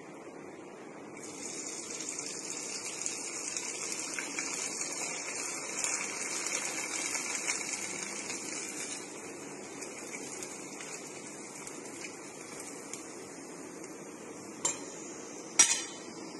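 Rice papads deep-frying in hot oil in a kadhai, the oil sizzling and bubbling steadily. It is louder and hissier for the first several seconds, then settles. Near the end come two sharp metal clinks.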